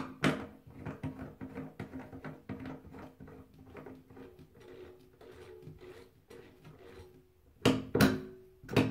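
A chrome toe-tap bathtub drain stopper is turned by hand onto its threaded post, making a run of small, quick ticks and scrapes that fade away. Near the end it is pressed down with the fingers, giving a few sharp, loud clicks.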